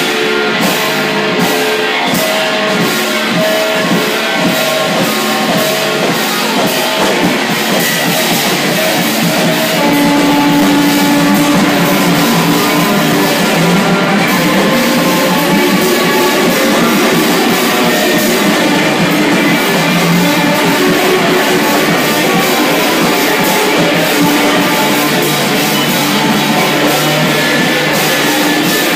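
Live noise-rock band playing loud: electric guitars, including a double-neck electric guitar, over a drum kit struck hard with cymbal crashes, a dense unbroken wall of sound. About ten seconds in it grows a little louder as a low bass layer fills in.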